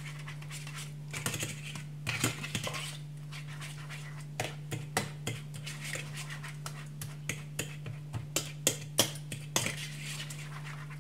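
A fork beating eggs and cheese in a ceramic bowl, clinking irregularly against the bowl, the clinks coming more often a few seconds in. A steady low hum runs underneath.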